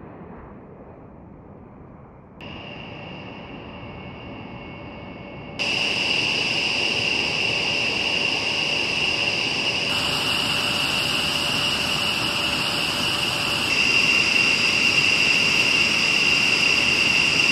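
Jet engines of a B-1B Lancer running on the ground: a steady high-pitched turbine whine over a broad rush of jet noise. It steps abruptly louder about two and a half, five and a half and fourteen seconds in.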